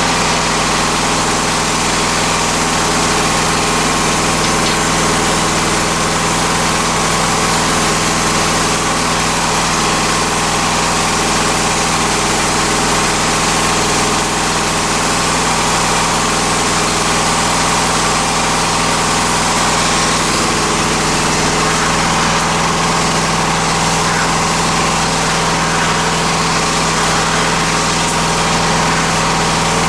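Engine of a freshly rebuilt MI-T-M CW-3004 pressure washer running steadily at a constant speed.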